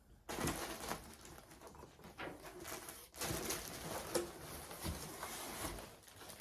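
Packaging rustling and crinkling, with light taps and scrapes, as a shipping box is unpacked; the handling stops briefly about halfway through.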